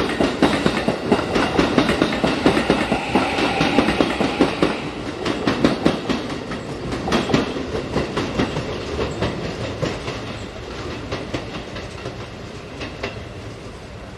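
Keikyu electric train running over pointwork, its wheels clacking rapidly and irregularly over rail joints and switches, growing steadily quieter. A high whine sounds for a couple of seconds near the start.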